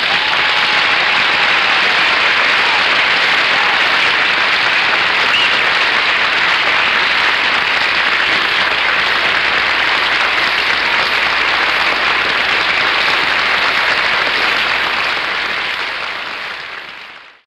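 Studio audience applauding steadily, then fading out over the last couple of seconds.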